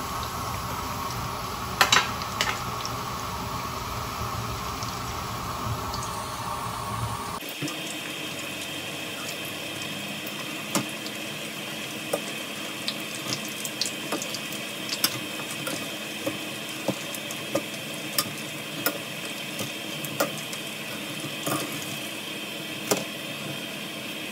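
Breaded chicken croquettes deep-frying in a pan of hot oil: a steady sizzle with scattered crackles and pops, a short fry only to brown the crust. A low hum sits under the sizzle for the first seven seconds or so, then stops suddenly.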